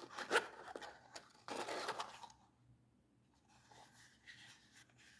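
Handling noises from a boxed folding pocket knife and its packaging: a couple of sharp clicks near the start, a scraping rub about one and a half seconds in, then faint rustling.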